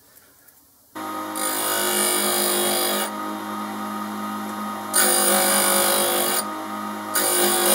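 After about a second of near silence, a tool grinder's motor runs with a steady hum while a lathe tool bit is ground against its cup wheel in three passes of a few seconds each, each pass a loud hissing grind. The bit is being shaped into a form tool for cutting an ACME thread.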